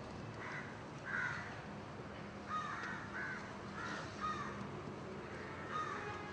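Birds calling outdoors: a run of short, repeated calls, some in quick pairs, over a steady low background hum.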